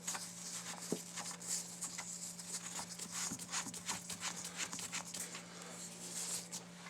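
Light, irregular metal clicks and scrapes of a Gemtech Outback II suppressor being screwed onto the threaded barrel adapter of a .22 rifle, over a steady low hum.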